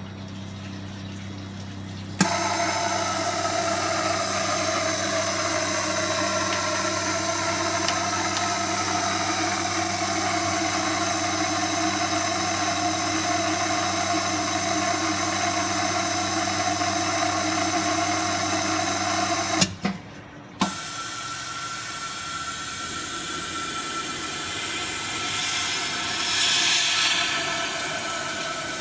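Techniks induction shrink-fit machine running a cycle: a loud, steady hiss with a low hum and several high whining tones. It starts with a click about two seconds in, cuts out for about a second roughly two-thirds through, and starts again.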